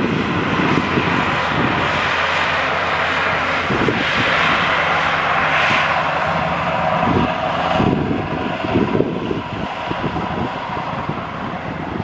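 Diesel engine of a Maxxi Bimo X-treme 2.0 rice combine harvester running steadily, with wind buffeting the microphone.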